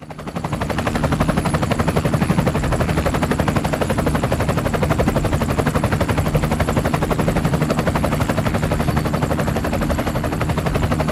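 Helicopter in flight: the rotor beating in a fast, even chop over a steady low engine hum, fading in at the start.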